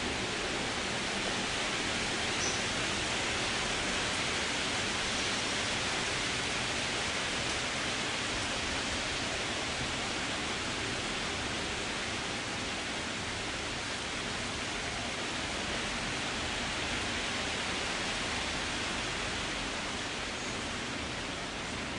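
Wind blowing through trees: a steady, even rushing hiss of moving leaves.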